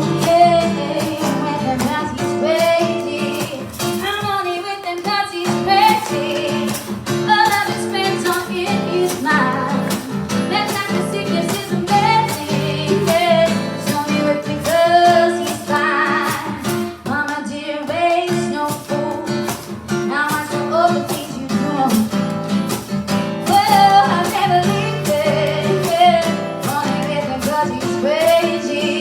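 A woman singing with a strummed acoustic guitar, live.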